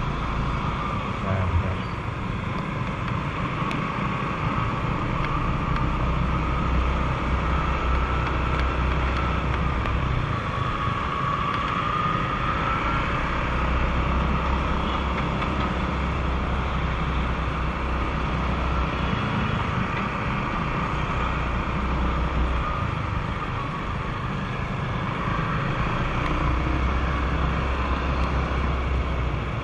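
Steady riding noise from an old Honda Vario 125 scooter moving through traffic on a wet road: wind rushing over the microphone, with a low rumble that comes and goes in long stretches, over the scooter's single-cylinder engine and tyre noise.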